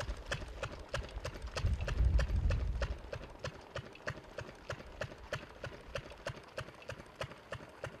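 Tractor front-end loader at work: its diesel engine runs with a regular clacking about four times a second, and a deep rumble swells for a second or so about two seconds in.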